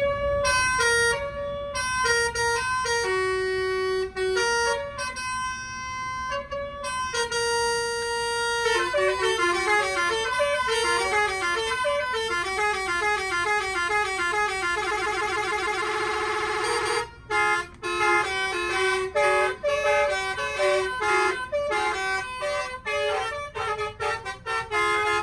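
Basuri telolet musical horn playing a melody of short, stepped horn notes. A fast run of rapid notes comes in the middle, and after a brief break about 17 seconds in, the tune goes on in short notes.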